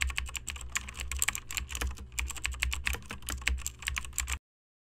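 Computer keyboard typing sound effect: a rapid, uneven run of key clicks over a low hum, cutting off suddenly about four and a half seconds in.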